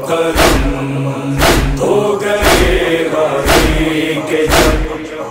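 Noha accompaniment between sung lines: a chorus of voices chanting a wordless drone over a deep, steady beat about once a second.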